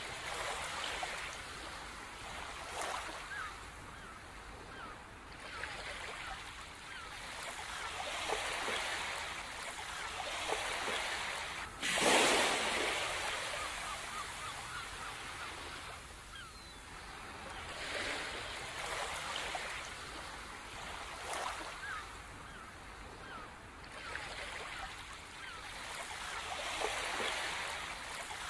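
Ocean waves washing ashore in repeated swells, each rising and falling over a few seconds, with one larger wave breaking about twelve seconds in.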